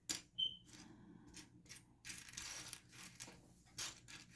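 Small plastic building bricks clicking and rattling as pieces are picked through and pressed together: a series of sharp clicks, the loudest near the start, with a longer rattle of sorting about two seconds in.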